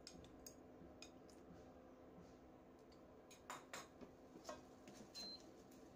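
Faint scattered small pops and ticks over a low steady hum, with a short cluster a little past halfway: cheese sauce simmering and bubbling in a pan as it thickens with cornstarch.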